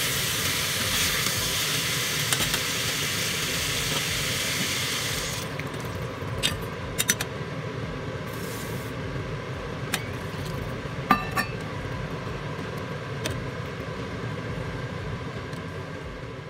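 Meat and vegetables sizzling and being stirred in a stainless-steel pot. About five and a half seconds in, the sizzle drops sharply once liquid is in the pot. After that it settles into a quieter simmer, with a few clinks of a metal spoon against the pot.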